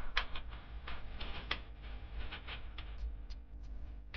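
A run of irregular light clicks and ticks over a low steady hum.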